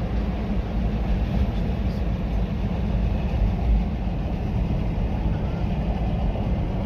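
Steady low road and engine rumble of a moving car, heard from inside the cabin while cruising.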